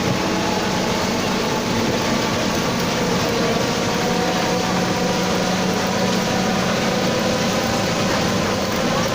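Mercedes-Benz OF 1721 BlueTec 5 bus running on the road, heard on board: a steady engine drone with the driveshaft (cardan) droning loudly under it, several steady tones over a rushing road noise.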